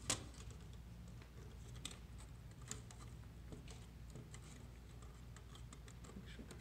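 Small plastic clicks and taps from freeing the last wire from the push-in terminal block of a Simple Comfort 2001 thermostat. One sharp click comes just after the start, then scattered fainter clicks.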